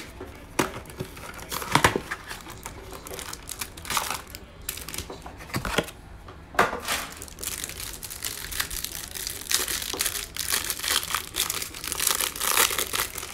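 A cardboard 2020 Mosaic football hanger box being torn open, then the plastic cellophane wrapper around its stack of trading cards crinkling as it is peeled off by hand. A few separate sharp tears and crackles come first, giving way to steadier crinkling over the last few seconds.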